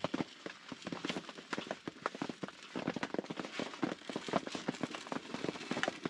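A newly lit fire of wood-wool firelighters and damp kindling crackling, with quick, irregular sharp pops.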